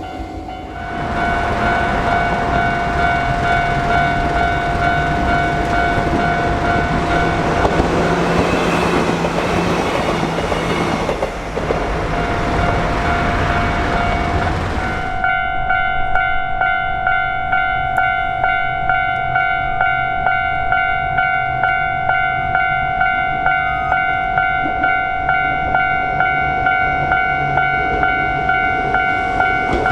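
Japanese level-crossing alarm ringing in an even, repeating rhythm. For the first half a train runs through the crossing with a loud rushing rail noise that cuts off suddenly about halfway, after which the crossing alarm rings on alone.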